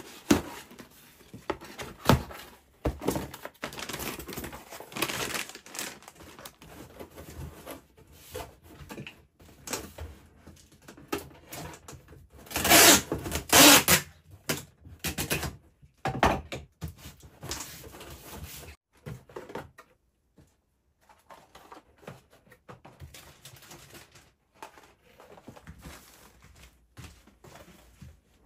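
Irregular clicks, knocks and light rustling from things being handled in a small room, with a louder burst of noise lasting about two seconds near the middle.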